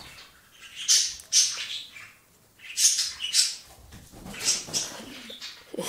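A kitten scrabbling and rustling off-screen while it goes after its thrown fetch toy: a series of short, hissy scraping bursts.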